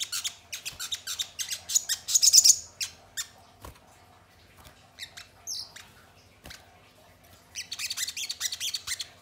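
Sogon birds' rapid, high-pitched chittering calls in bursts: at the start, around two seconds in, and again near the end, with scattered single chips between.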